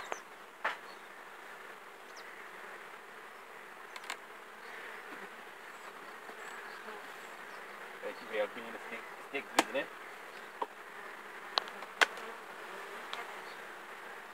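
Honey bees buzzing steadily around open wooden hives. A few sharp knocks and clicks come while a hive is being worked, clustered from about eight to ten seconds in, and the loudest come at about nine and a half and twelve seconds in.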